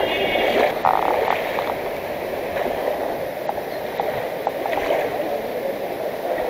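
The flooded Kaveri River rushing past and lapping against the bank, a steady wash of moving water.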